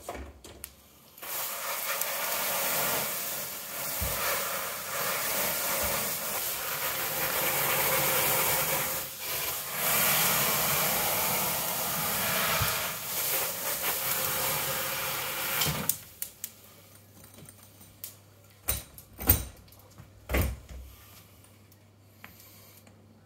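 Water misted from a sprayer wand into the hot Rofco B40 deck oven to steam the sourdough loaves: a steady hiss lasting about 15 seconds that stops abruptly. A few seconds later come two or three sharp knocks as the oven's metal doors are shut.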